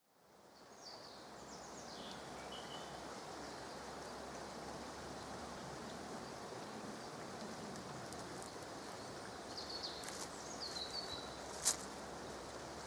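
Forest ambience fading in: a steady rustling hiss with a small bird chirping in short phrases near the start and again about ten seconds in, and one sharp snap near the end, likely a footstep on the forest floor.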